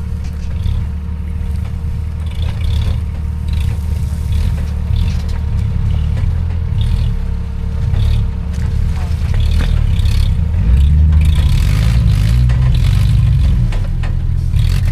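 A 4x4's engine running at low revs, then revving harder from about ten seconds in, with scattered knocks and rattles from the vehicle working over rough ground.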